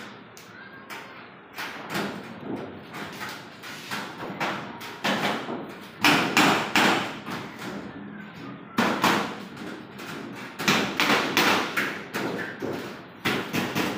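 Stick arc welding with a rod electrode on galvanized iron sheet: the arc crackles in short, irregular bursts as tack welds are struck one after another, the loudest about six seconds in and several more between nine and twelve seconds.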